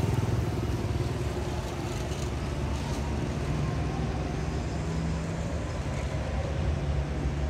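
A steady low engine drone with a faint held hum above it, like a motor vehicle running.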